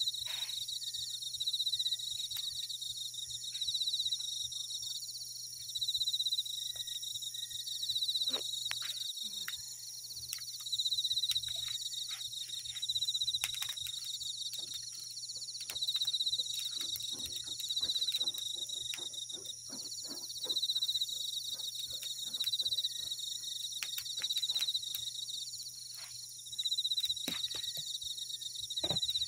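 Night chorus of crickets, a dense high-pitched chirring that swells and fades every couple of seconds, with scattered light clicks and taps throughout.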